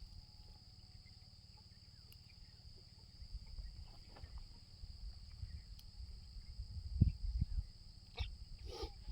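Insects, likely crickets, keeping up a steady high-pitched drone, over a low rumble. A few dull thumps come about seven seconds in.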